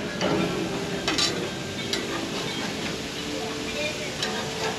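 Marinated kingfish fillets sizzling on a hot grill, with a metal spatula scraping and clinking against the grill grates several times.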